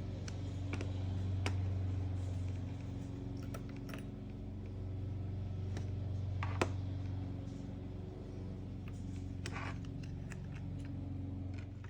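Scattered light clicks and taps of small parts being handled as an LCD panel is worked back into a transceiver's display head, over a steady low hum.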